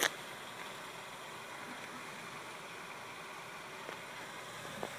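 A 2002 Chevrolet Cavalier's 2.2-litre four-cylinder engine idling, heard from in front of the car as a steady, even hiss, with a brief click at the very start.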